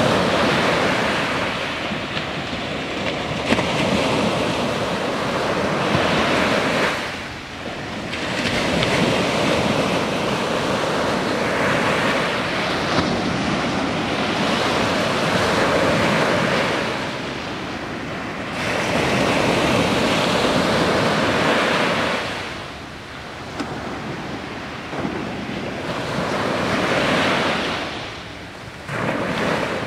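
Small Mediterranean waves breaking and washing up a sandy beach. The surf swells and eases every several seconds, with short lulls between sets.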